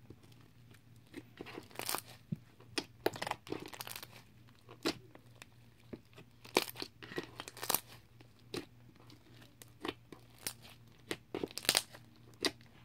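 White slime with rice mixed in being stretched and squished by hand, giving irregular crackles, pops and tearing sounds.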